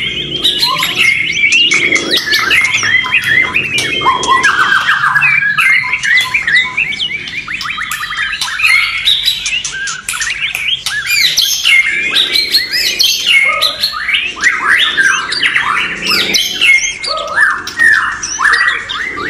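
Several white-rumped shamas singing at once: a loud, dense tangle of overlapping whistled phrases and fast chattering notes, with no pause.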